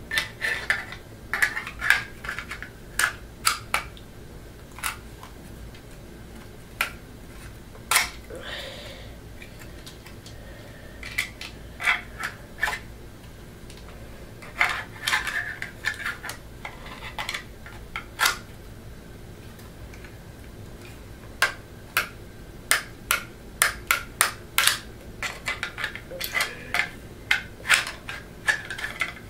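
Crosman C11 CO2 airsoft pistol being handled while its CO2 cartridge is fitted and secured in the grip: irregular sharp clicks and knocks in clusters, with quiet gaps between them.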